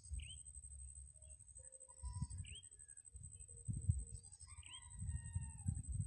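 Outdoor ambience of birds chirping, one repeating a short call every second or two, over a steady high-pitched drone of insects. Bursts of low rumble come and go, louder in the second half.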